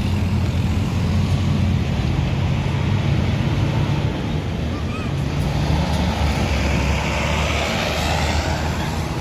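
Diesel engine of a passing intercity bus, a low steady drone among road traffic, swelling in the last few seconds as a vehicle goes by close.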